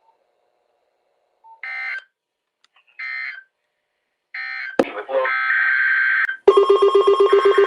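Emergency Alert System end-of-message code: three short two-tone data bursts about a second and a half apart, marking the end of the broadcast alert. Then comes a click and a longer data burst, and about six and a half seconds in a loud, rapidly pulsing alert tone starts.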